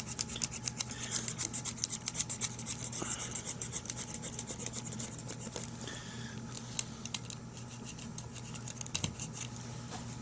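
Eternabond sealing tape being rubbed down hard onto the RV roof around the ladder-leg anchor plate, with quick scraping strokes several times a second that thin out in the last few seconds. The rubbing works out trapped air so the tape seals.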